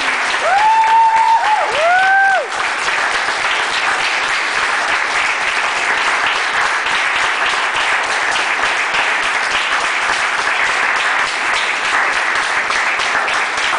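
Audience applauding throughout, with a few high whooping cheers rising and falling over the clapping in the first couple of seconds.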